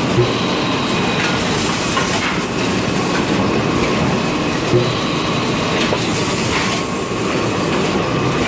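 XY AI 398D automatic kitchen towel roll packing machine and its conveyor running: a steady mechanical clatter with a low thud about every two seconds. There are two short hisses, about one and a half seconds in and about six seconds in.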